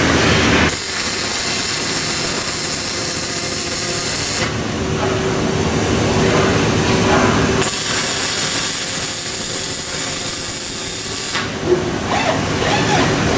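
Robotic wire-fed (MIG) welding arc hissing and crackling in two bursts of about four seconds each as the robot welds the chain, over a steady machine hum. A sharp click comes near the end.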